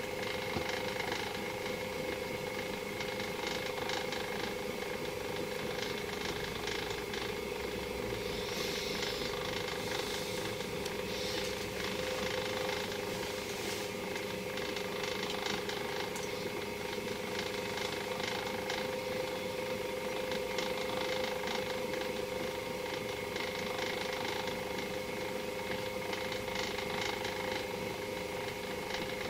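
Small electric motor of a display turntable running: a steady hum with a constant whine.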